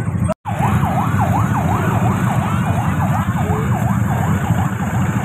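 Electronic siren in rapid yelp mode, its pitch sweeping up and down about three times a second, over a steady low rumble.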